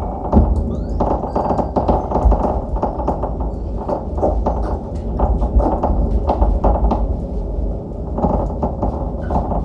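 Experimental noise music: dense, irregular crackling and clicking over a steady, heavy low rumble.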